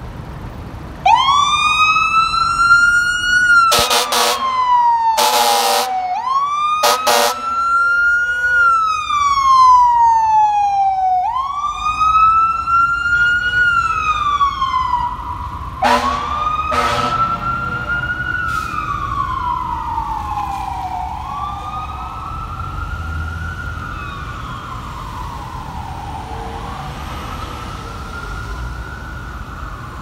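Fire engine siren wailing, its pitch rising and then slowly falling in cycles about five seconds long. Several loud air-horn blasts come around four to seven seconds in and two short ones around sixteen seconds. The wail grows fainter in the last third.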